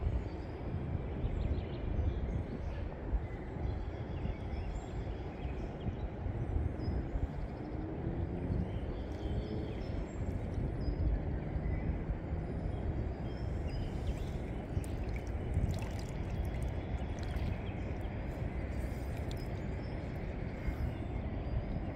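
Steady low rumble of wind buffeting the microphone at the water's edge, with faint ticks in the second half.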